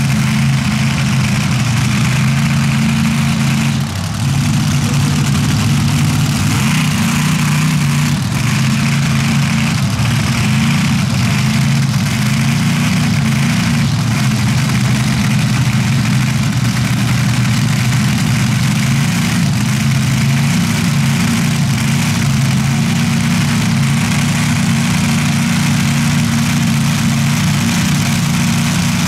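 Dirt drag race engines idling steadily with the vehicles staged at the line before a pass: a loud, even engine rumble with no revving.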